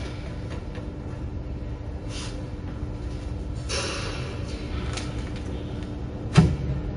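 Hands handling packaging film and parts of a pillow-type flow-wrapping machine: a rustling swish about four seconds in and a sharp knock near the end, over a steady low hum.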